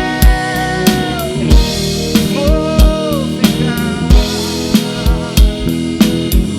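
Live band music between sung lines, with drum kit kick and snare hits, bass and guitar. A held note fades out about a second in.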